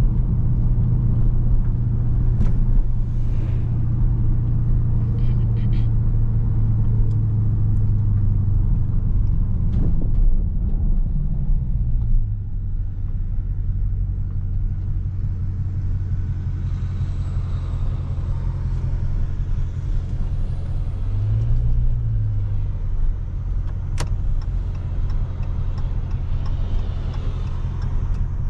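2019 Dodge Charger Scat Pack's 392 HEMI V8 running at low, steady engine speed while driving, a deep, even drone. The pitch eases down about twelve seconds in and rises and falls briefly about three-quarters of the way through, and there is a single sharp click shortly after.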